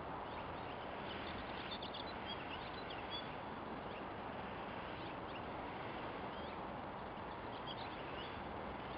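Steady outdoor hiss with small birds chirping briefly in the background, in a cluster about two seconds in and again near the end.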